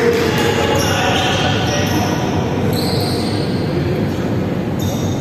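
Steady echoing din of an indoor sports hall during a volleyball game, with faint voices of players mixed in.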